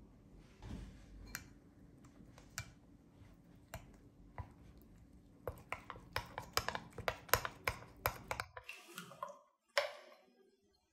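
A hand mixing a thick yogurt-and-coriander marinade in a glass bowl. Fingers click and tap against the glass, a few scattered clicks at first, then several a second for about three seconds in the second half.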